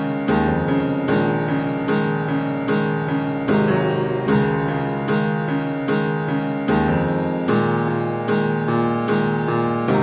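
Background piano music: a steady run of evenly spaced notes, a few a second.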